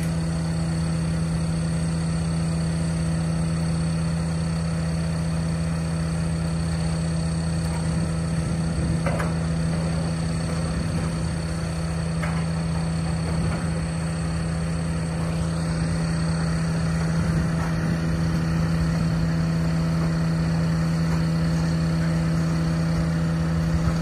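An engine running at a constant speed: a steady, unchanging hum with a strong low tone.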